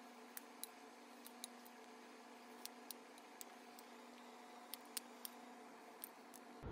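Near silence with a faint steady hum and about a dozen faint sharp clicks at irregular intervals.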